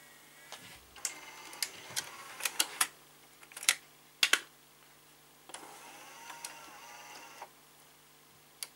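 NEC KD-1000 DAT deck's cassette loading mechanism cycling. A small motor whirs with clicks as the front tray opens, then come a few sharp clacks. The motor runs again for about two seconds as the tray closes, and it ends on a click.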